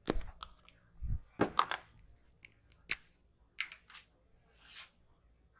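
Head massage by hand: short rubs over hair and skin with several sharp clicks, and a dull thump about a second in.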